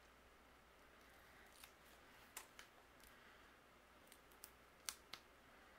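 Near silence with a few faint, sharp clicks and ticks of fingernails picking at and peeling the paper backing off foam adhesive circles; the sharpest clicks come near the end.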